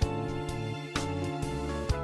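Instrumental background music with held chords and a regular beat.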